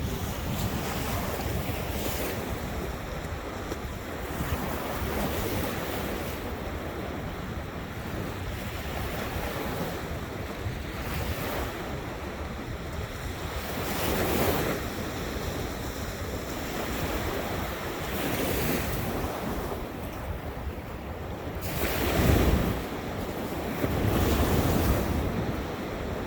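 Ocean surf washing ashore, swelling and falling back every few seconds, the loudest surge about 22 seconds in, with wind rumbling on the microphone.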